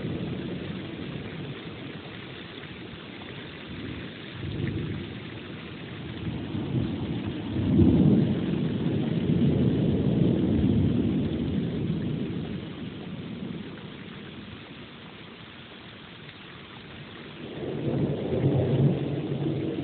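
Thunder rolling over steady rain. A short rumble comes about four seconds in, the loudest roll about eight seconds in that rumbles on for several seconds, and another builds near the end.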